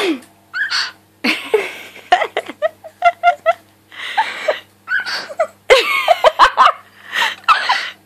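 Cockatiel chirping and sneezing: short hissy sneeze bursts between brief squeaky calls, with laughter mixed in.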